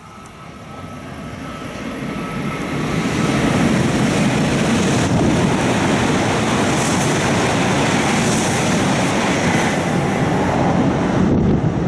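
E7 series Shinkansen bullet train passing through a station at high speed without stopping. The rush of air and wheel-on-rail noise builds over the first three or four seconds, then stays loud and steady as the cars go by.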